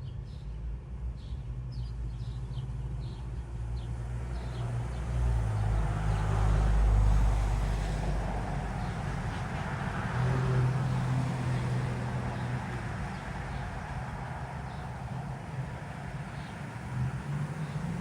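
A motor vehicle's engine and road noise passing, swelling to its loudest about seven seconds in and then easing off to a steady rumble. A few short bird chirps in the first few seconds.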